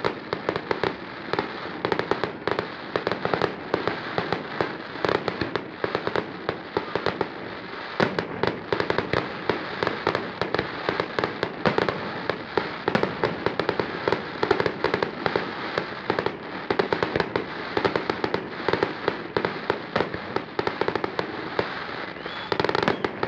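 Fireworks display: aerial shells bursting in quick succession, a continuous run of sharp bangs and crackles several times a second.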